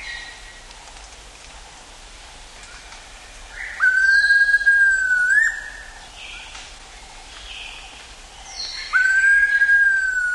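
Eared pitta giving two long, even whistles a few seconds apart, each held on one pitch and flicking upward at the end. Fainter chirps from other birds sound higher up over a steady hum of forest insects.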